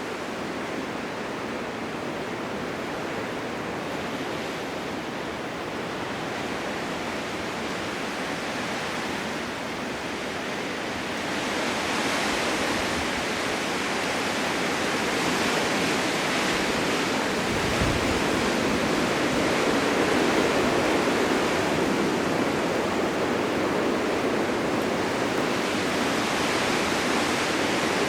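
Blizzard wind blowing as a steady noise, growing louder about eleven seconds in and staying stronger.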